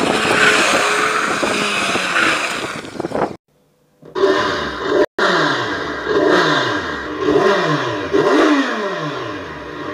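A motorcycle engine running hard while its tyres skid on loose dirt. After a brief silent cut, the engine is revved again and again, each rev dying away, about once a second.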